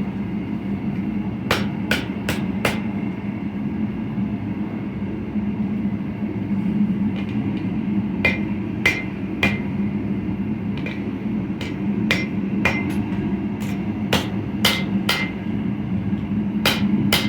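Hammer blows on steel at an anvil, forging a blade from old sawmill-blade steel: sharp ringing strikes in quick groups of three or four about half a second apart, with short pauses between groups. A steady low hum runs underneath.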